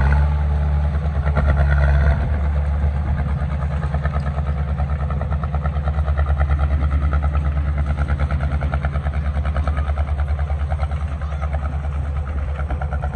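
Heavy diesel engine of a construction machine running, easing off about two seconds in and then settling into a steady, pulsing throb.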